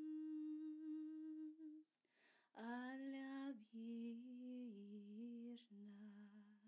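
A woman's unaccompanied voice humming and singing long held wordless notes in light language chanting. One steady note, then a breath about two seconds in, then a lower note that slides up, dips and rises again before ending near the end.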